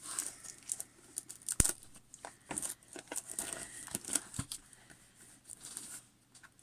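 Packaging of a small diamond painting kit crinkling and rustling as it is handled and opened by hand, with scattered clicks, the sharpest about one and a half seconds in.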